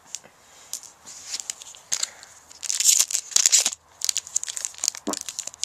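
Foil wrapper of a Magic: The Gathering booster pack crinkling and tearing as it is ripped open by hand, a run of sharp crackles that is loudest about three seconds in.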